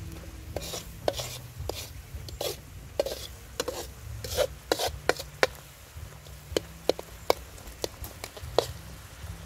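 Metal ladle scraping and clinking against a steel wok in irregular strokes while stir-frying in hot oil, with the oil sizzling.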